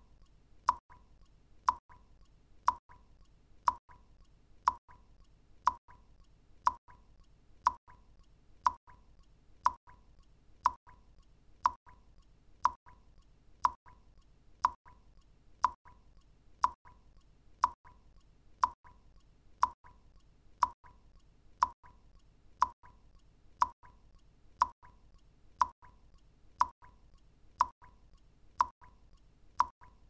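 Water drops falling one at a time into still water, each a short plink at much the same pitch, evenly spaced about once a second.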